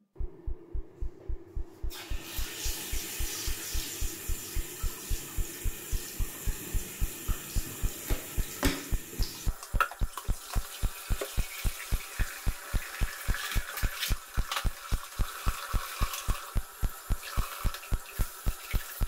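Background music with a steady thumping beat over water running and splashing in a bathroom sink. The water starts about two seconds in.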